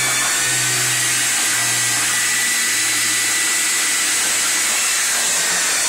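Vacuum cleaner running steadily, a constant hissing rush of suction through a wide hose being worked in a boat's bilge.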